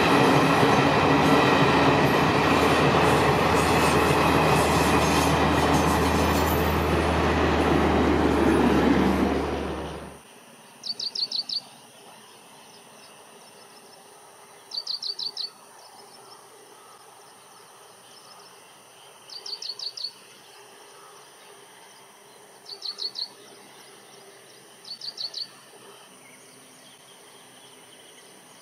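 A diesel train running past loud and close, with a steady low engine hum under the wheel and body noise; it cuts off abruptly about ten seconds in. After that, a bird calls five times over a quiet background, each call a quick run of high chirps.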